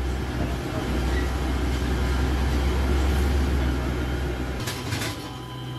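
Loading machinery, a forklift engine, running with a low, steady rumble while a pallet is lifted into a cargo plane's hold. The deep rumble cuts off about four and a half seconds in, leaving a lighter hum.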